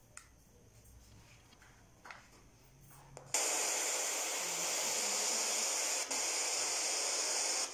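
A handheld electronic listening device's speaker gives a loud, steady static hiss that starts abruptly about three seconds in, after a few faint clicks. Its volume has been turned up to try to make faint voices audible.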